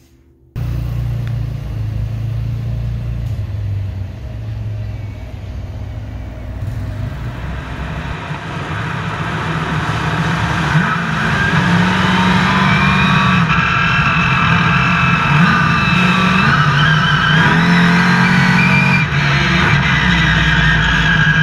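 Monster truck's supercharged V8 engine heard close up from inside the cab. It runs low and steady at first, then from about eight seconds in it grows louder and revs up and down with wavering pitch.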